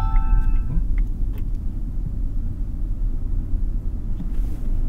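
Steady road and tyre rumble inside the cabin of a HiPhi Z electric sedan accelerating on a city road, with no engine note. A short electronic chime of several tones sounds right at the start.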